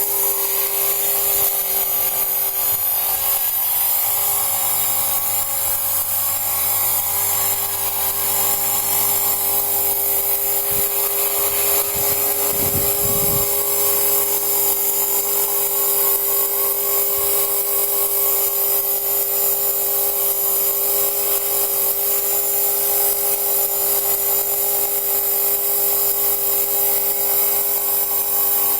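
Radio-controlled aircraft's motor running steadily in flight, a constant high-pitched mechanical whine.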